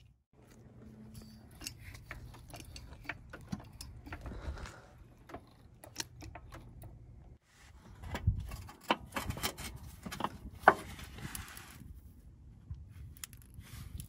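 Scattered metallic clicks, clinks and knocks of hand tools and bolts being worked while an old engine mount is taken off a car, busier in the second half, with one sharp clank about two-thirds of the way through.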